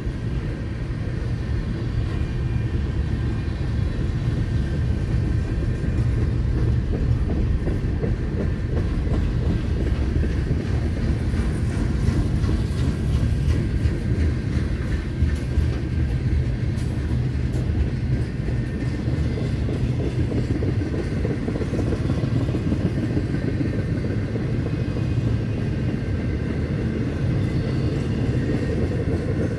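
Freight train cars (tank cars, a covered hopper and gondolas) rolling steadily past, steel wheels on rail making a continuous low rumble.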